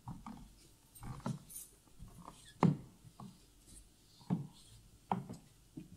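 Footsteps on a stage floor: a slow, uneven series of soft thuds about one a second, the loudest near the middle.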